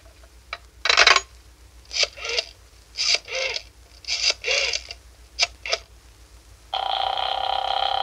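Telephone sound effect: a sharp click of the receiver hook, then the dial being turned for several digits in short whirring pairs, then a steady ringing tone on the line near the end as the call goes through.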